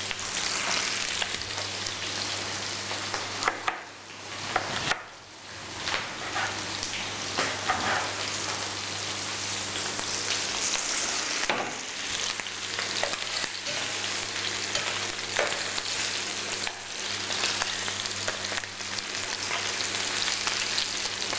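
Sliced red bell peppers, cabbage and floured chicken thighs sizzling in olive oil in frying pans, a steady hiss with a few short clicks.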